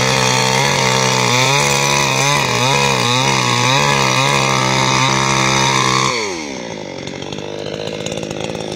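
Handheld chainsaw cutter's small engine running at high revs, its pitch dipping again and again as it cuts through red gram (pigeon pea) stalks. About six seconds in the throttle is let off and the engine drops to a lower, quieter idle.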